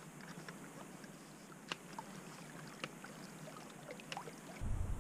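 Lake water lapping gently against shoreline rocks, with scattered small clicks and drips. A low rumble comes in near the end.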